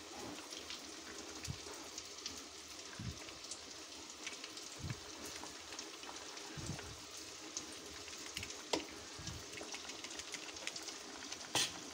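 Pot of gulai daun singkong (cassava leaves in a coconut-milk curry) bubbling on the boil: a steady crackle of small pops with a few louder pops now and then. The curry is cooked through.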